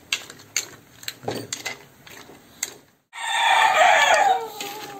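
A rooster crows loudly once, starting about three seconds in, the call falling in pitch at its end. Before it, a spatula clicks and scrapes against a wok as the mussels and greens are stirred.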